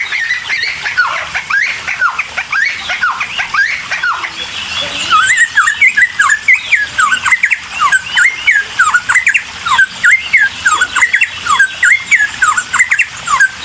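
Cucak timor songbird singing a fast, continuous chattering song of quick rising and falling whistled notes, in full heated song. It grows louder and busier about a third of the way in.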